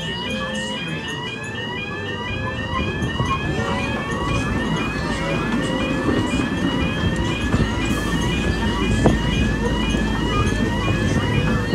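Level crossing warning alarm sounding: a quick, repeating rising electronic yelp, a few sweeps a second. A small amusement-park ride train rumbles past the crossing, louder from about halfway through.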